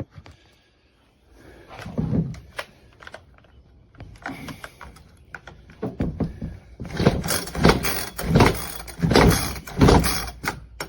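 Recoil starter of a NEO-TEC 25.4cc two-stroke top-handle chainsaw being yanked several times, the pulls coming closer together in the second half, with the engine not catching. It pulls extremely hard because the clutch stays engaged and each pull drags the chain round.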